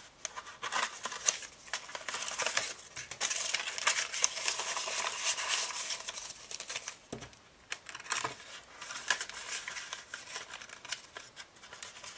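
Paper banknotes and a paper cash envelope rustling and crinkling as bills are handled and slid into the envelope, with many light clicks and taps.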